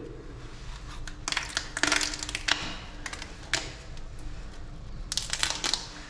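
Brittle flakes of old tar paint crackling and clicking as a hand breaks them up and pulls them off the steel bilge, which the paint no longer sticks to. The clicks come in two clusters, about a second in and again about five seconds in.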